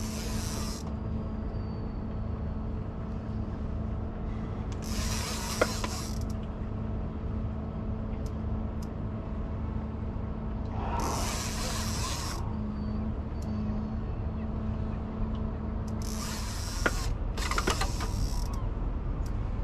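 Fishing reel being cranked with a small skate on the line, its gears clicking, over a steady low hum. Five short bursts of hiss come and go.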